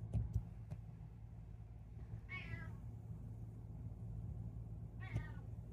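A domestic cat giving two short, high, thin meows, one about two seconds in and one about five seconds in, asking for the door to be opened.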